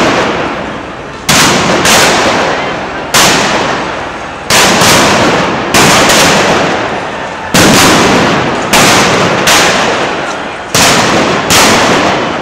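A run of loud, sharp bangs, about a dozen, roughly one every second, each followed by a long echo that dies away between the buildings of a city street.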